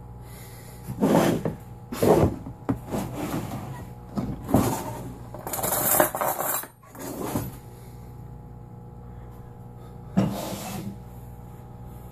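Kitchen handling noises: a run of knocks, clunks and scrapes as things are picked up and set down on the table, then one more knock about ten seconds in, over a steady background hum.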